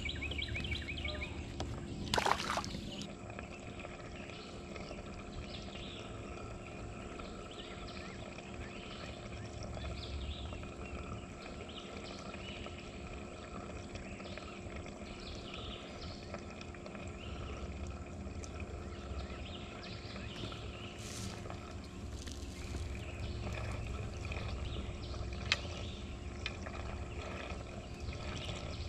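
Outdoor ambience on open water: a low wind rumble on the microphone with faint, scattered chirps, broken by a few sharp knocks, the loudest about two seconds in.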